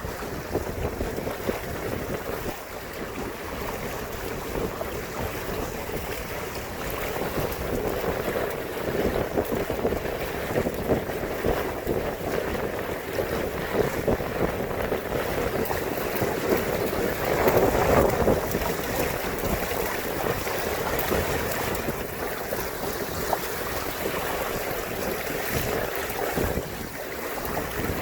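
Wind buffeting the microphone over water washing along the hulls of a WindRider 17 trimaran under sail, steady throughout and swelling briefly about two-thirds of the way in.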